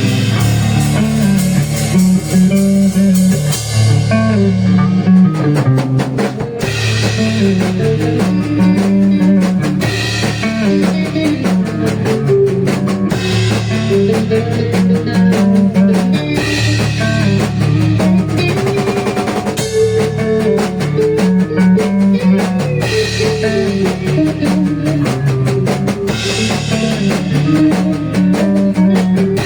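Rock band playing an instrumental passage: distorted electric guitars and bass on a repeating riff over a full drum kit.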